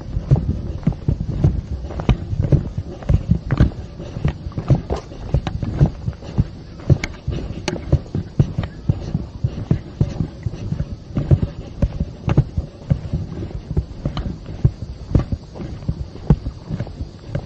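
Footsteps of a hiker walking downhill on a dirt trail: irregular low thuds, two or three a second.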